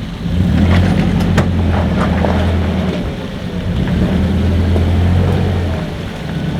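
Off-road 4x4's engine pulling hard at crawling speed, swelling twice, with scattered knocks and clicks from the tyres working over rock.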